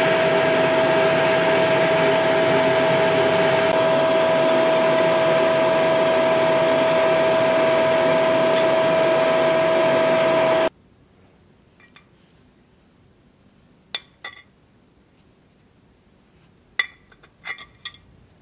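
An electric grinder runs steadily with a high whine while the forged iron shield boss is held to it, stopping abruptly about ten seconds in. Then a few light metallic clinks as hand-forged iron nails are set against the iron boss.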